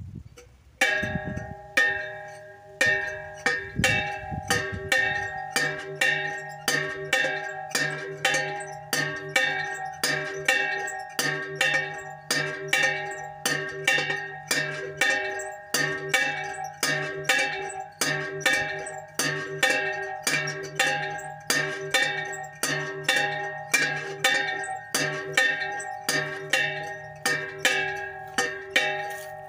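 A homemade bell made from an upturned metal cooking pot, swung on a wooden frame so that its clapper strikes it over and over, about two strikes a second. It starts about a second in and rings on steadily between strikes.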